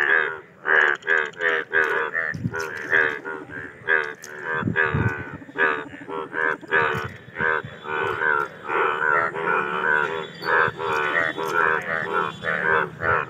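Chorus of Indian bullfrogs giving their mating calls: many overlapping croaks, a few a second, without a break.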